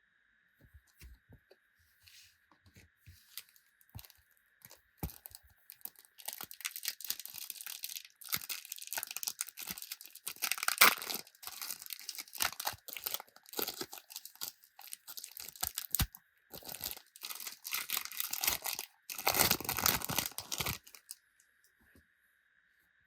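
Panini Adrenalyn XL trading-card packets being torn open and their wrappers crinkled by hand: a few light clicks and rustles at first, then about fifteen seconds of repeated crackly tearing and crumpling that stops shortly before the end.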